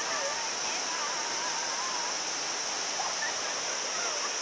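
Steady rushing of a waterfall, with a constant high-pitched insect drone over it and faint wavering calls in the distance.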